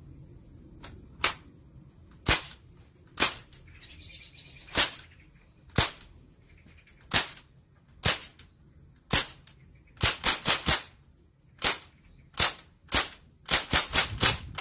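Umarex M1A1 Thompson CO2-powered steel BB gun firing: sharp single cracks about a second apart, then two quick strings of four or five shots, one near the middle and one near the end.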